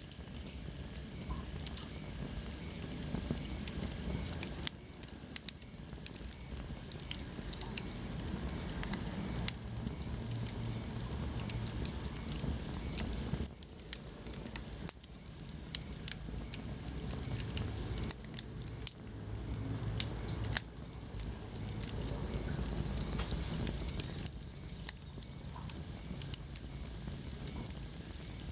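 Wood fire burning in a fireplace: a low steady rumble of flames with frequent irregular pops and crackles.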